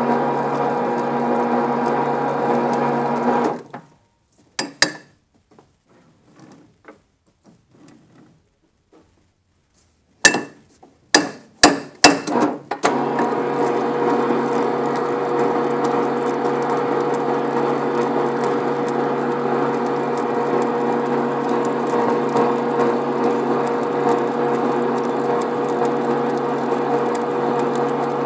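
RIDGID 535 pipe-threading machine running steadily, then stopping about three and a half seconds in. After a pause broken by a few sharp knocks, it starts again about halfway through and runs steadily while its die head cuts threads on ribbed rebar.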